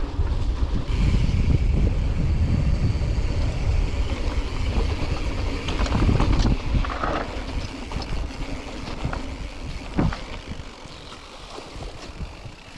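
Mountain bike riding over a wet, rough trail: a low rumble of wind on the microphone and tyre noise, with knocks and rattles from the bike, easing off after about seven seconds.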